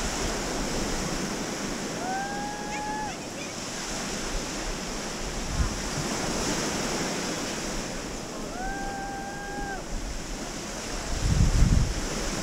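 Small sea waves washing onto a sandy shore, with wind on the microphone. Two short, held high-pitched calls about six seconds apart, and a gust of wind buffets the microphone near the end, the loudest moment.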